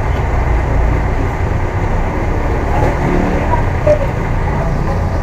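A car engine running at idle: a steady low rumble with no change in speed.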